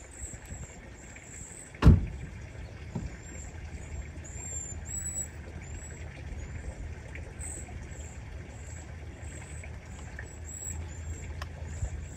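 Outdoor ambience: a steady low rumble of wind on the microphone, with faint high chirps repeating about twice a second. A single sharp knock sounds about two seconds in.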